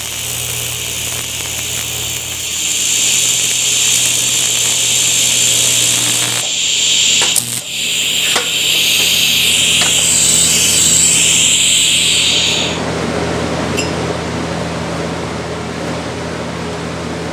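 AC TIG welding arc on a cast aluminum part: a steady buzzing hiss with a low hum under it, the arc cutting off about thirteen seconds in while the low hum carries on.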